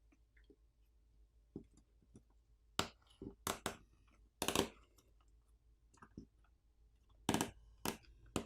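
Scattered sharp clicks and taps from small tools and tiny parts during smartphone disassembly, as the Phillips screws holding the internal cover are removed and set down. About a dozen irregular clicks, the loudest a few seconds in and near the end.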